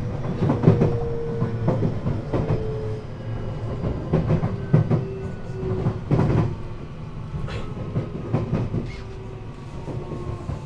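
521-series electric train running, heard from inside the motor car. The traction motor's whine slides slowly down in pitch as the train slows, over a steady rumble, with wheels clacking over rail joints several times.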